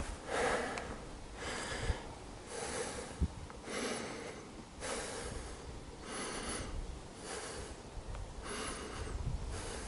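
A person breathing heavily close to the microphone, about one breath a second, with a faint whistle at the top of some breaths. A couple of soft low thumps underneath.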